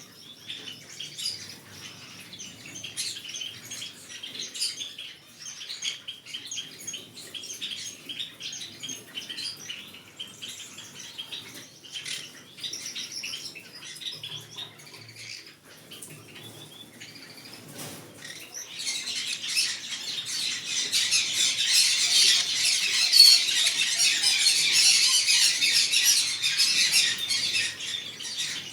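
Green-cheeked conure chirping and chattering with rapid short calls, becoming much louder and denser about two-thirds of the way through.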